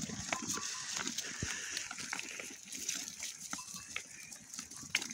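Flock of sheep and goats foraging for acorns in dry leaf litter: scattered small clicks and rustles from hooves and muzzles, over a faint steady high hiss.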